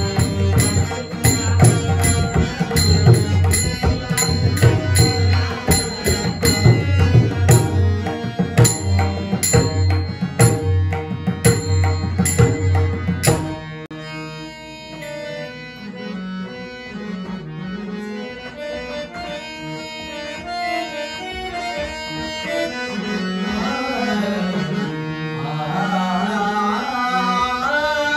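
Bhajan accompaniment: a pakhawaj drumming fast and densely with sharp cymbal strokes keeping time over steady harmonium tones. About halfway through, the drums and cymbals stop abruptly, leaving the harmonium and a man's voice singing a slow, drawn-out melodic line.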